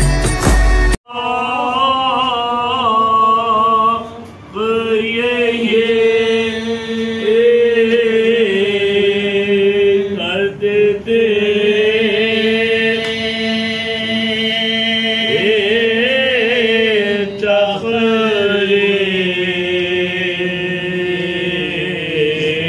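About a second of intro music cuts off, then men's voices chant a slow Muharram mourning elegy, with long held notes that slide in pitch and short breaks for breath.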